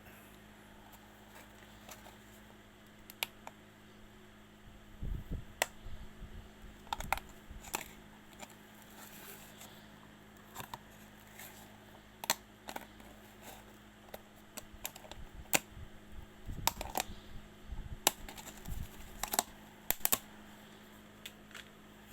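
Scattered light clicks and taps at irregular intervals, with a few short clusters of soft low thumps, over a steady low hum.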